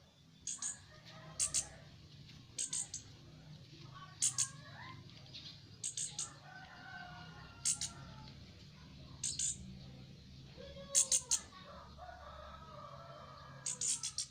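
Orange-headed thrush chick giving short, sharp, high-pitched calls in quick pairs and triples about every one and a half seconds, over fainter wavering bird calls behind.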